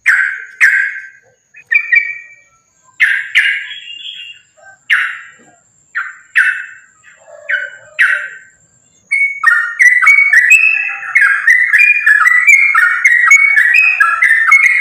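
Yellow-vented bulbul (trucukan) song: separate short, bubbly phrases, then from about nine seconds in a rapid, unbroken run of chattering phrases in the fast, continuous 'fighting' style. A faint steady high whine sits underneath in the first half.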